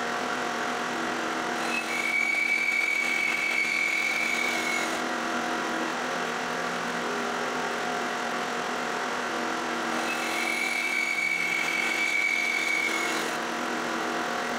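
Hammer N4400 bandsaw running with a 1/2-inch, 10-teeth-per-inch blade, slicing two thin discs off a segmented wood blank. Each cut adds a higher whine over the steady running sound for about four seconds, first about a second in and again about ten seconds in.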